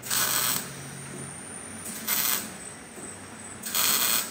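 TIG welding arc tack-welding a bracket onto a stainless steel exhaust pipe: three short bursts of arc hiss, each under a second, a spot weld each time.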